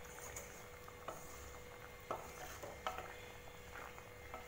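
Spatula stirring a thin tamarind-and-okra gravy in a kadai, with four faint taps and scrapes against the pan about a second apart.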